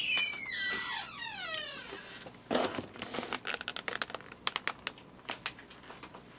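Disposable plastic takeout containers crinkling and clattering as they are stacked and lifted off a table: a run of short, sharp plastic clicks and rustles. It opens with a falling, whistle-like glide over the first two seconds.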